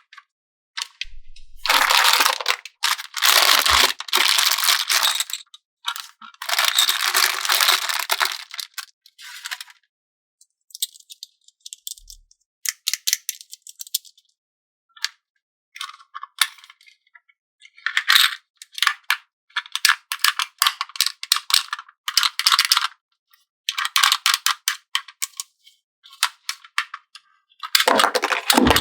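Plastic toys and packaging being handled: bursts of rattling and crinkling full of small clicks, starting and stopping every second or two.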